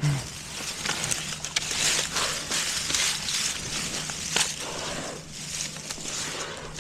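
Rustling and crunching of footsteps moving through dry undergrowth, with a low thump at the start and a few sharp clicks, the loudest about four seconds in.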